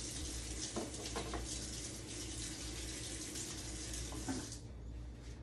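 Kitchen sink faucet running water, with a few light knocks of things being rinsed under it; the flow stops about four and a half seconds in.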